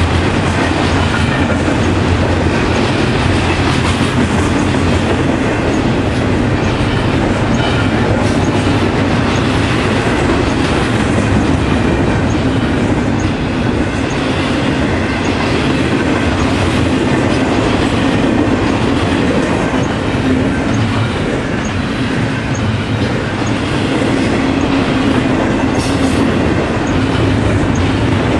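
Double-stack container train cars passing at speed: steel wheels running on the rails in a steady, loud rumble.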